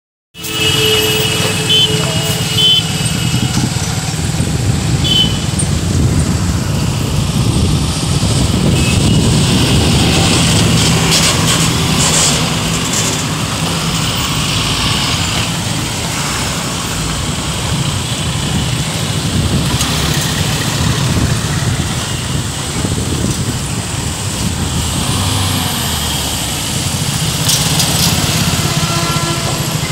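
Busy road traffic: truck and motorcycle engines running and tyres on a rough road, a steady low rumble.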